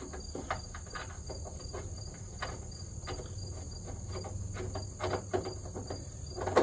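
Faint clicks and taps of a starter solenoid and its mounting hardware being handled and fitted against a truck's fender well, over a steady high-pitched trill of insects.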